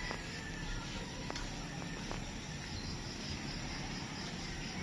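Insects chirping faintly in an even, repeating pattern over a steady low rumble of outdoor background noise.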